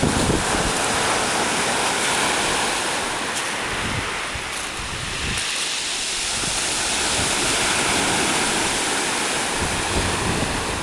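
Sea surf washing and breaking on the shore, a steady rush of water, with wind rumbling on the microphone now and then.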